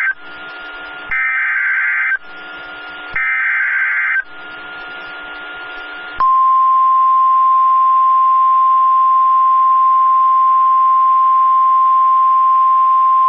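Weather radio sounding an Emergency Alert System header: the second and third rasping SAME data bursts, each about a second long with hissy pauses between. About six seconds in, the single steady warning alarm tone starts and holds. This sequence heralds a new alert, here a severe thunderstorm warning.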